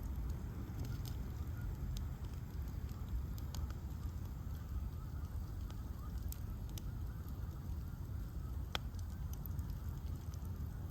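Bonfire of ash logs burning, with a steady low rumble of the flames and scattered sharp crackles and pops, one louder crack near the end.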